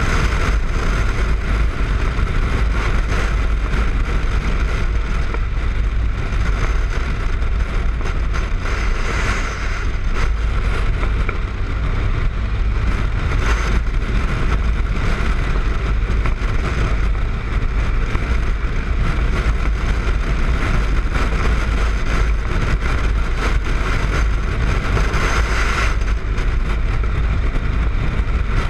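Steady wind rush and buffeting on a motorcycle-mounted action camera's microphone while riding at road speed, over the motorcycle's engine and tyre noise.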